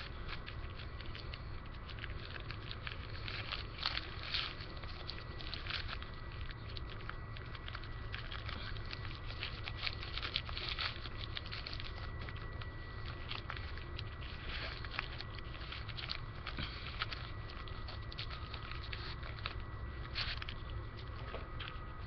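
Newspaper crinkling and rustling in short, irregular scratchy spells as it is handled and rolled up, over a steady low rumble.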